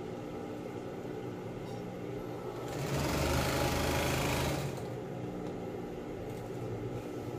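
Industrial sewing machine running a short burst of stitches, about two seconds long near the middle, through vinyl tarpaulin and binding tape. A steady low hum runs under it before and after.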